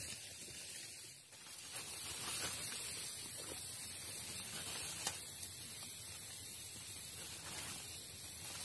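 Leafy branches rustling and snapping lightly as they are handled, over a steady high hiss of rainforest background.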